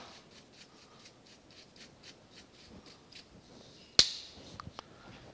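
Hand brushing cast-iron drill chips off a casting: faint scratchy ticks and rubbing, then a single sharp knock about four seconds in.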